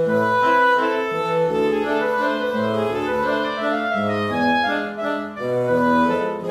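Background music: an instrumental tune with held melody notes over a bass line that changes note about once a second.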